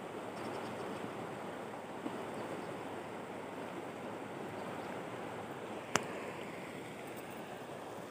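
Steady rush of a flowing river current, with one sharp click about six seconds in.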